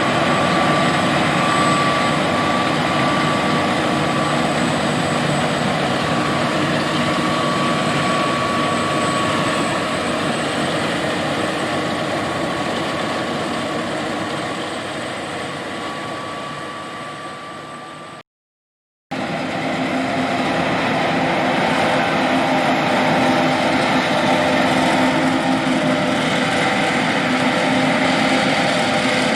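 John Deere S780 combine harvester running steadily at work, a constant machine noise with a thin whine over it. The sound sinks away, breaks off for under a second about two-thirds through, then comes back at full level with a slightly different pitch.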